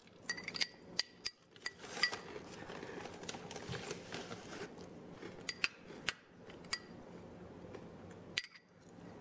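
Metal spoon clinking and scraping against a glass bowl as thick tomato sauce is scraped out of it: a scatter of light clinks, with soft scraping in between.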